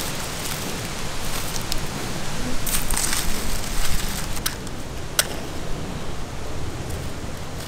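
Dry coconut fronds and husk fibre rustling as they are handled and laid on the ground, with a few sharp clicks and snaps, over a steady hiss.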